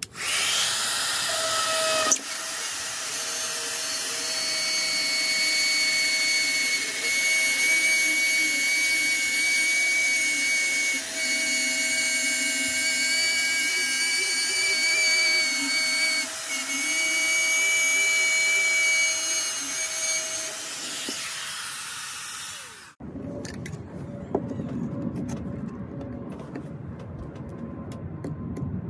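Milwaukee cordless drywall cut-out tool running at high speed with a steady, high whine as its spiral bit routes an opening through drywall for an electrical box; the level dips briefly twice. It stops about 23 seconds in, and a quieter, lower sound follows.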